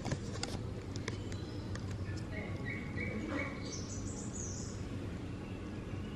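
A cat making a few short, high-pitched squeaky chirps around the middle, over a steady low hum. A handful of light clicks come in the first two seconds.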